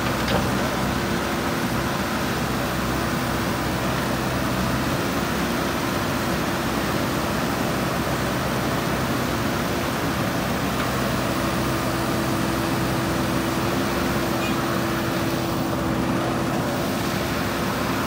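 JCB 3DX backhoe loader's diesel engine running steadily as the backhoe arm digs, with a steady humming tone over the engine noise.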